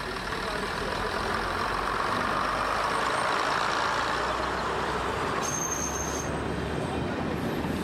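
00 gauge model train running past on the track: a steady rolling rumble of wheels on rail that swells as the coaches come close, with a brief high-pitched tone about two-thirds of the way in.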